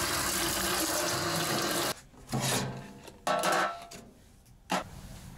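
Tap water running hard into a stainless-steel sink and splashing over dishes, shut off abruptly about two seconds in. A few short clatters of dishes and a metal tray follow.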